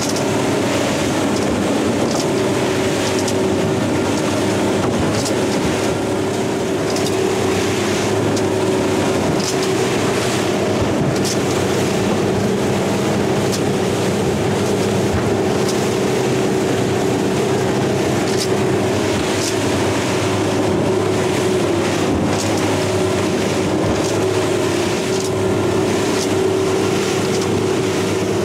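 Twin outboard motors running steadily at cruising speed, a constant drone, over the rushing water and spray of the boat's wake.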